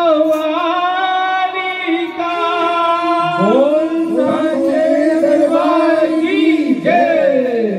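A man singing a devotional bhajan into a microphone through a PA system: long held notes for the first few seconds, then bending, drawn-out phrases, over a steady drone underneath.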